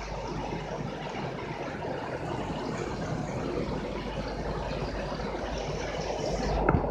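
Steady rain falling, an even, continuous hiss, with a brief knock near the end.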